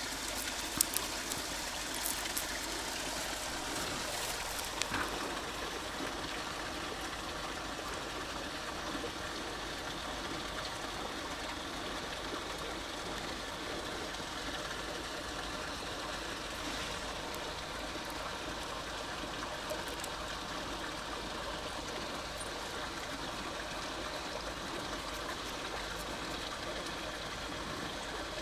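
Steady rush of running water from a small stream flowing in, with a few sharp clicks in the first five seconds.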